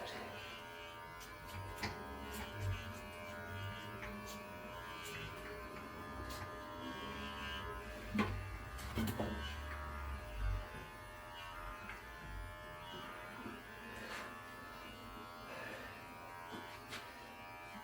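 Electric pet hair clippers buzzing steadily while shaving a cat's fur, with scattered light clicks and knocks from handling.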